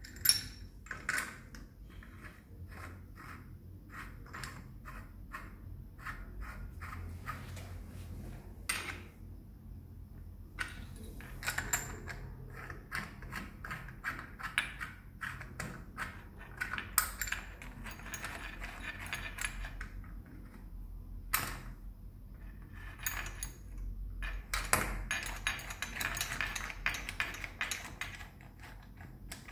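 Metal clinks and taps of a chrome shower mixer body and an open-end steel spanner against its union nuts and the wall connectors as the nuts are threaded on and tightened, with a few sharper knocks and stretches of denser clattering.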